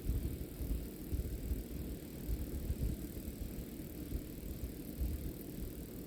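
Outdoor nature ambience: an uneven, gusting low rumble, with faint steady high-pitched tones above it.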